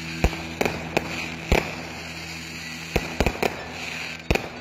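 Aerial fireworks bursting overhead: about eight sharp bangs at uneven intervals, some close together in a quick run, with a crackling haze between them.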